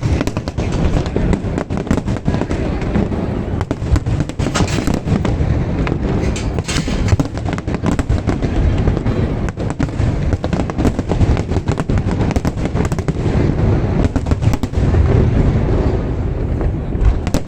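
Aerial fireworks bursting in a dense, continuous barrage: rapid, overlapping bangs one after another with no pause.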